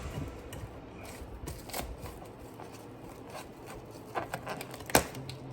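Plastic cling wrap crinkling and crackling as it is stretched and pressed down to seal over a bowl, with scattered small crackles and one sharper click near the end.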